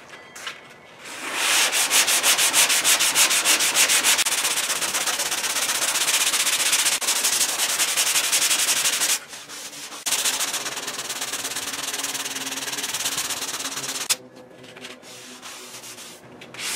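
Hand block sanding of body filler on a car fender: 3M sandpaper on a long Dura Block pushed in rapid back-and-forth strokes, making a steady scraping. It pauses briefly about nine seconds in and stops about fourteen seconds in.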